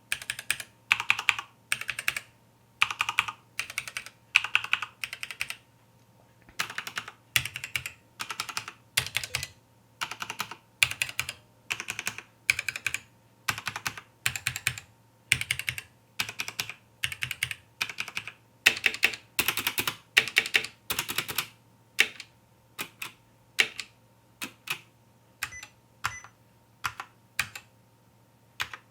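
Key presses on two mechanical keyboards with linear red switches, a Corsair K65 with Cherry MX Reds and a Womier K66 with Gateron Reds, typed in short quick runs of clacks, about one run a second.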